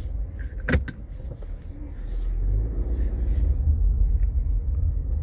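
Low, steady rumble inside a 2019 Subaru Outback's cabin, growing louder after about two seconds, with two sharp clicks just under a second in.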